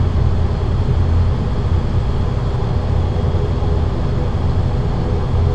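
ATR 42-600's Pratt & Whitney PW127 turboprop and six-blade propeller running at low ground power while the airliner taxis, heard from inside the cabin as a steady low drone.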